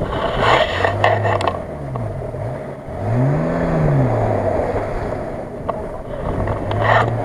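4x4 engines revving under load as one vehicle tows another out of deep mud on a strap. The engine note rises and falls several times, with a long swell about three seconds in, over a steady running drone.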